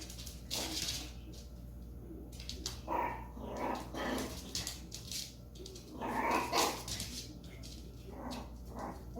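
A dog barking in short, irregular bursts, several times over.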